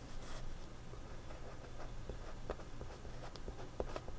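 Faint, irregular scratching and rubbing on sketch-pad paper from hand work with a colored pencil lead and eraser, a few short strokes a second.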